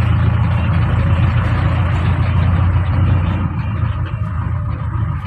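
Engine and road noise heard from inside a moving vehicle's cabin: a steady low rumble that eases slightly about four seconds in.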